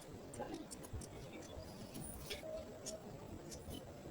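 Faint strokes of a coloring tool on paper: irregular small scratches and ticks, with a brief squeak about two and a half seconds in.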